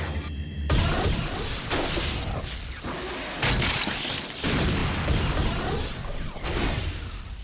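Animated battle sound effects: a string of loud blasts, crashes and whooshes following one after another, starting about a second in.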